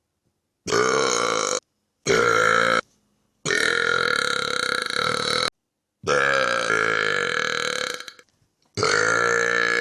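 Five long, loud, deliberate belches in a row, each about one to two seconds of low, drawn-out burping, separated by short dead-silent gaps where one clip cuts to the next.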